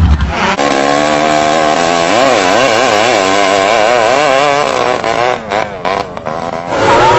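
Racing longtail drag boat engine running at high revs, its pitch wavering rapidly up and down. Near the end the sound breaks up for a moment before an engine's pitch starts gliding again.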